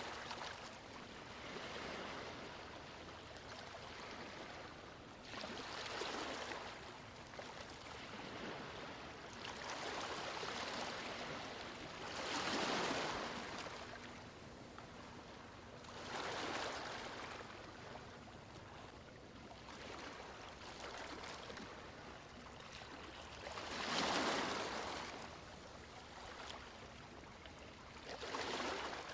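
Sea waves washing onto a shore in slow, soft swells every few seconds, two of them breaking louder near the middle and later on.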